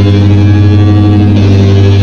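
Loud live band music: a held chord over a steady bass note, changing to a new chord about one and a half seconds in.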